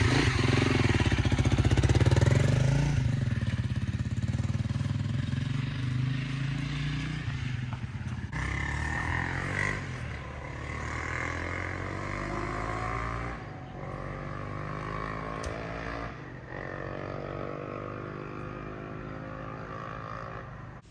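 Honda CRF300L single-cylinder dual-sport motorcycle pulling away and accelerating up through several gears, each gear a rising engine note. It is loudest at the start and grows fainter as it rides off.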